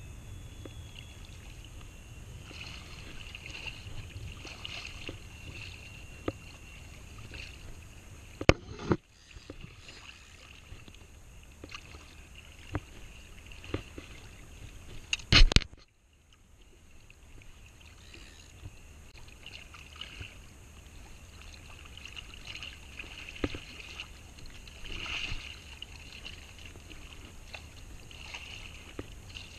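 Water splashing and lapping around a waterproof action camera at the surface, with scattered small knocks and clicks from handling the fishing rod and spinning reel. Twice there is a loud knock, and each time the sound goes dull for a moment after it.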